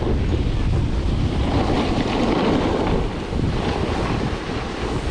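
Wind buffeting the microphone at riding speed, over the steady hiss of a snowboard sliding and scraping on snow.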